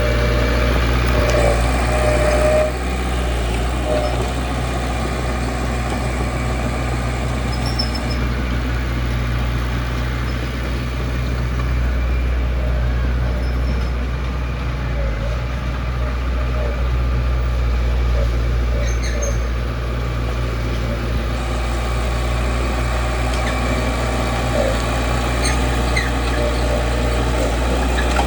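Heavy diesel engine of a construction machine running steadily with a deep, even hum.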